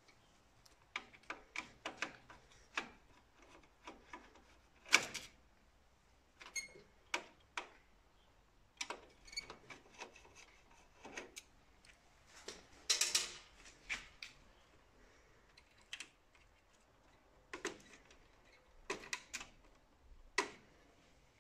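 Irregular clicks, taps and small metallic rattles from a screwdriver working the screws and wiring on the scanner plate of an Océ PlotWave 300 wide-format printer. The loudest is one sharp click about five seconds in, and a short flurry of rattling clicks comes about two-thirds of the way through.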